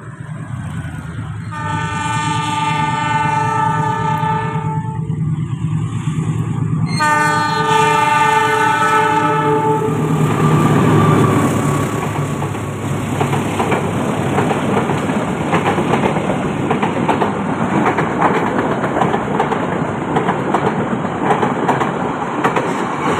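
Passenger train approaching with two long blasts of the locomotive's horn, over the low hum of its engine. It then passes close by, and the wheels clatter steadily over the rail joints as the coaches go past.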